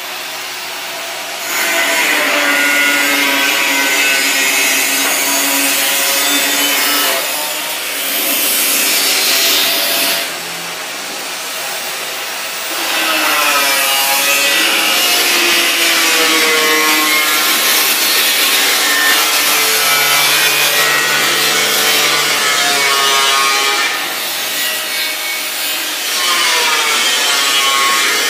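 Angle grinder working stainless steel sheet: a harsh, continuous whine whose pitch sags and recovers as the disc is pressed into the metal. It eases off briefly about ten seconds in and again near the end.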